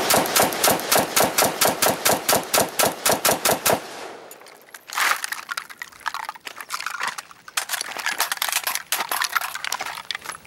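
Semi-automatic SIG 556 rifle in 5.56 fired in a fast string of shots, about five a second, which stops about four seconds in. After that come quieter, irregular knocks and clatter.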